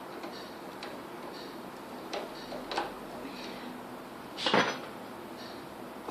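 Sparse light metal clicks as door knob lockset parts and screws are handled and fitted, with one louder knock or clatter about four and a half seconds in.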